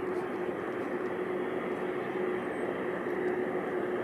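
Jet airliner engines running: a steady, unchanging rushing noise with a constant hum at one pitch underneath.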